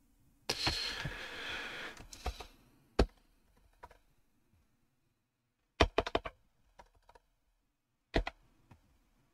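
Computer keyboard keystrokes: a single key press about three seconds in, a quick run of four key presses typing a short word near six seconds, then a few scattered presses and a firmer one near the end. Before them, a couple of seconds of soft hiss.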